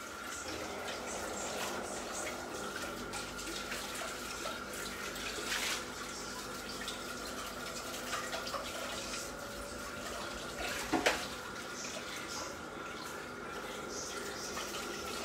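Steady watery rushing noise with a faint high steady hum under it and a few light clicks; a sharper knock about eleven seconds in.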